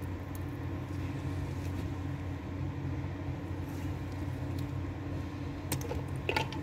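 A steady low hum, with a few small clicks near the end as crimping pliers and crimp terminals are handled.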